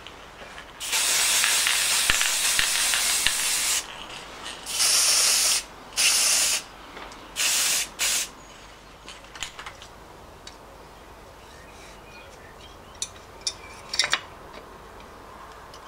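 Aerosol spray paint can spraying red paint onto an alternator fan and pulley: one long hiss of about three seconds, then four short bursts. Near the end, a few light clicks of parts being handled.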